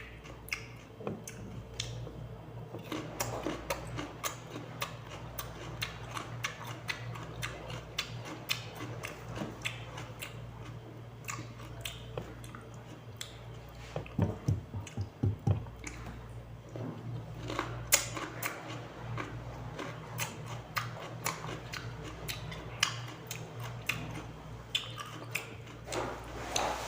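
Crunchy chewing and biting of raw cucumber: many crisp, irregular crunches throughout, over a steady low hum.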